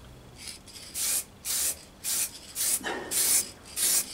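Aerosol spray-paint can hissing in a quick series of short blasts, roughly two a second.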